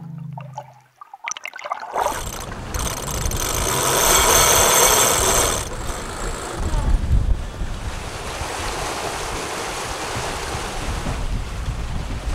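Wind buffeting the microphone over water rushing past the hull of a catamaran under sail, coming in suddenly about two seconds in and loudest for the next few seconds. Before that, a sung note from a song fades out.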